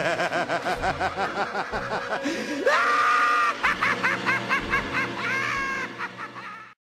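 Someone laughing in quick, high-pitched bursts. About three seconds in the voice slides up into a long held high note, then the laughing starts again and cuts off suddenly near the end.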